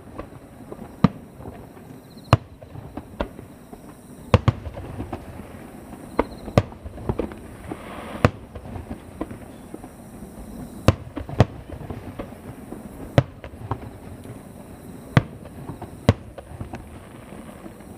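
Aerial fireworks bursting, heard from far off: about a dozen sharp bangs at irregular intervals, a second or two apart, over a low, continuous rumble of further bursts.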